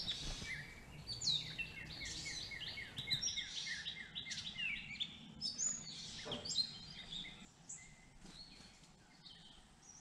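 Songbirds singing and calling, several at once. A quick run of short falling chirps, about five a second, runs through the first few seconds with other calls mixed in, and the calls thin out after about seven seconds.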